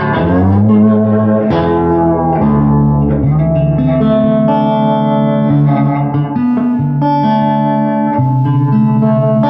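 Electric guitar played through a Filmosound projector amplifier converted to EL84 valves, driving a 10-inch Jensen ceramic speaker: sustained notes and chords, several of them gliding up into pitch.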